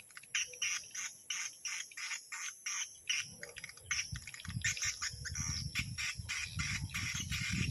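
Swiftlet lure call played from a swiftlet house's speaker: rapid repeated swiftlet chirps, about three to four a second, used to draw swiftlets in at dusk. A low, uneven rumble joins about three seconds in.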